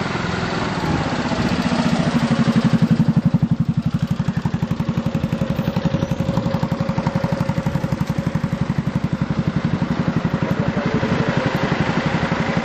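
An engine idling, a steady fast throb of about ten even pulses a second.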